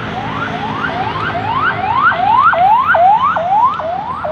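Electronic siren sounding a rapid yelp: a rising wail that climbs and snaps back down about three times a second, growing louder towards the middle, over a low traffic rumble.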